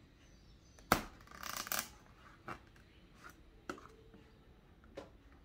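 A thin metal point cutting the paper seal on a cardboard watch box: a sharp click about a second in, a brief scratchy scrape right after, then a few light ticks.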